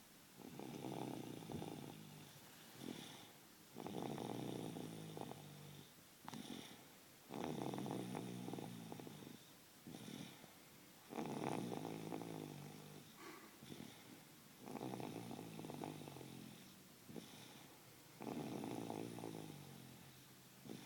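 A 28-month-old toddler snoring in sleep, in an even rhythm of about one breath every three and a half seconds: each breath is a long pitched snore that starts strongest and fades, with a short, softer sound between them.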